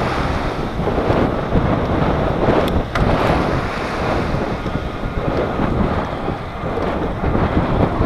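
Wind buffeting the microphone of a bike-mounted camera as the bike rides along the beach: a steady, gusting rush of noise, with a couple of faint clicks about three seconds in.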